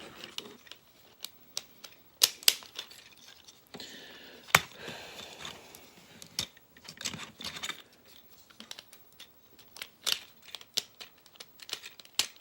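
Plastic transforming-robot toy parts being handled and fitted together: scattered sharp clicks and snaps with light rustling in between.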